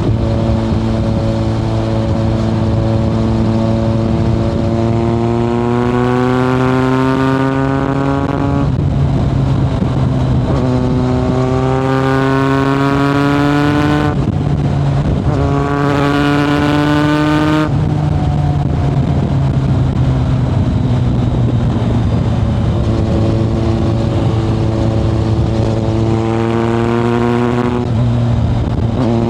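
Kawasaki ZRX1100 inline-four through a Yoshimura exhaust, heard from the rider's seat. It runs steadily at first, then accelerates hard through the gears, the pitch climbing and dropping sharply at each of three upshifts. It eases off for several seconds and pulls up again through another shift near the end.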